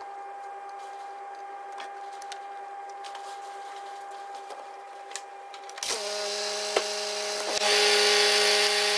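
Ford C-Max 1.6 TDCi diesel engine running with its new auxiliary drive belt turning on the pulleys, a steady whine; it grows louder about six seconds in. The belt is running true.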